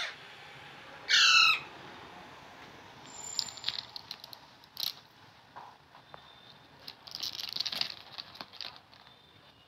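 An Alexandrine parakeet gives one short harsh call of several quick falling notes about a second in, the loudest sound. After that come scattered clicks and rustles of the bird handling a toy skateboard on newspaper, and a flurry of wing flaps about seven to eight seconds in.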